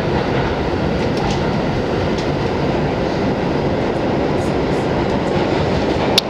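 R62A subway car heard from inside, running at speed: a steady rumble of wheels on the rails, with a sharp click near the end.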